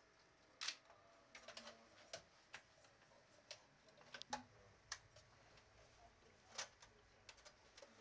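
Faint, irregular clicks and taps of hands working inside an open desktop computer case, handling its metal chassis and parts. Two clicks stand out, one near the start and one near the end.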